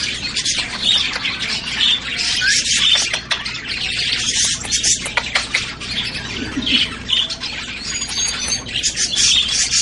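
Pet parrot squawking and chattering loudly without a break, a dense run of short, shrill calls.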